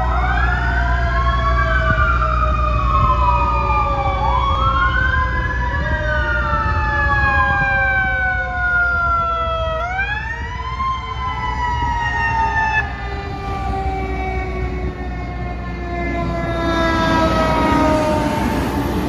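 Sirens of several fire department vehicles wailing at once, their overlapping tones rising and falling, over a steady low rumble. Near the end the sirens fade and a heavier rumble swells as a fire engine drives past.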